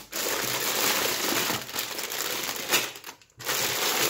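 Plastic bags of Lego parts crinkling and rustling as hands rummage through them, with a brief pause about three seconds in.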